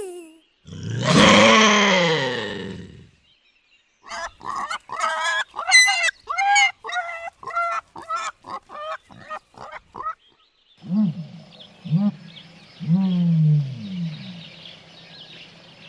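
Animal calls in three parts: one long, loud, harsh call that falls in pitch, then a quick run of short calls at about two a second, then several low calls that fall in pitch, repeated every second or so.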